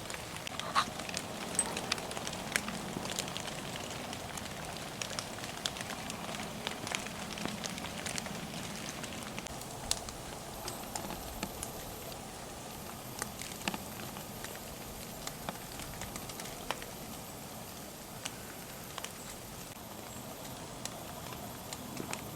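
Water dripping from snow-laden trees: scattered irregular taps over a steady soft hiss.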